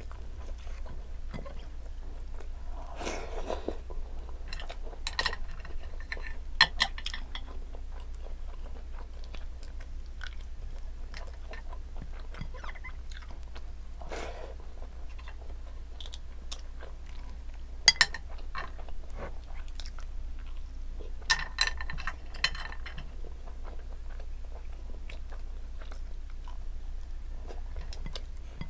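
A person chewing steamed green mussels and rice, with many small wet clicks and a few sharp, louder clicks over a steady low hum.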